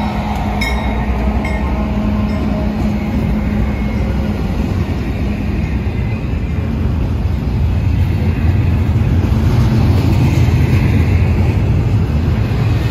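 Long intermodal freight train rolling past close by: a steady, loud rumble of wheels on rail that grows louder about eight seconds in. A grade-crossing bell dings a few times in the first second or so.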